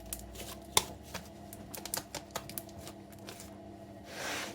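Slime being worked by hand, with scattered small sharp pops and clicks of air bubbles bursting in it, and a short hiss near the end.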